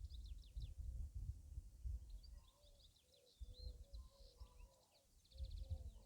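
Wind buffeting the microphone in low, uneven gusts that die down around the middle and pick up again near the end, with birds chirping over it in quick high notes and a lower call repeated in short notes.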